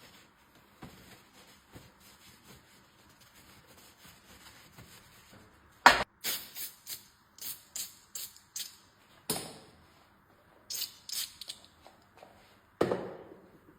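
Metal tools and fork parts clicking and clinking on a workbench during reassembly of an air-suspension bicycle fork: quiet handling at first, then a run of sharp, irregular clicks, the loudest about six seconds in and another near the end.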